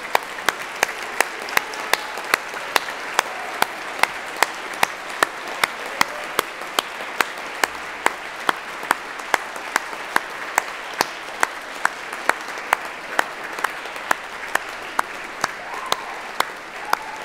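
Audience applauding steadily, with loud, evenly timed single claps, about two to three a second, standing out above the general clapping.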